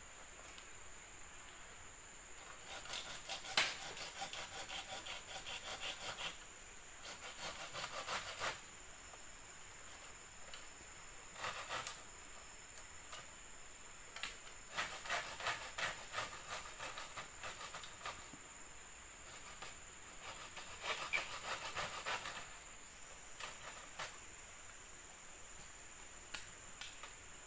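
Rapid scratchy rubbing strokes on wood, in several bursts of a few seconds each with pauses between, from hand work on a wooden treehouse floor.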